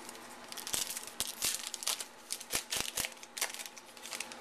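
A trading-card pack wrapper being torn open and handled: a run of crinkling, crackling rustles with a few sharp clicks, starting about a second in and dying down near the end.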